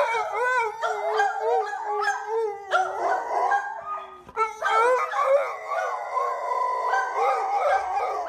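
A dog howling in long, wavering howls, with a short break about four and a half seconds in.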